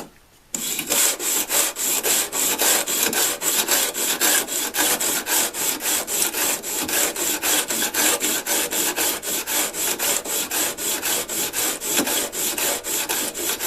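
Steel planer blades clamped in a sharpening jig, lapped back and forth on fresh 80-grit sandpaper: a rapid, even scrape at about three to four strokes a second, starting after a brief pause. The new paper is cutting aggressively, levelling the blade edges.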